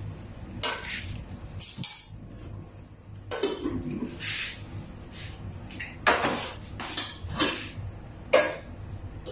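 Spoon and dishes clattering as rice is scooped from a rice cooker onto a plate: irregular scrapes and knocks, with sharp clinks about six and eight seconds in.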